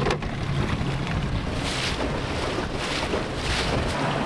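Dinghy outboard motor running at speed through choppy water, a steady low hum under wind rushing over the microphone and hiss from water against the hull. The hiss swells several times.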